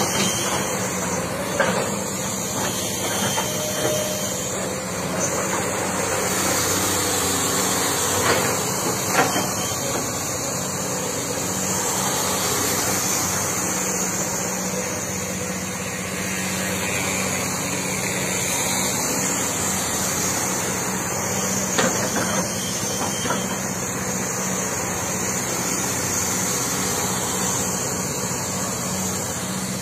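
Komatsu crawler excavator's diesel engine running steadily as the boom and bucket are worked, with a few short knocks.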